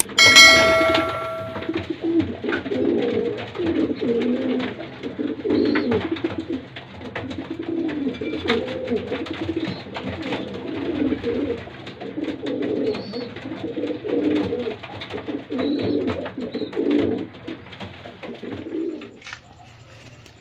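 Domestic pigeons cooing, several voices overlapping in a steady run of low, warbling coos that dies away near the end. A short, bright ringing chime sounds right at the start.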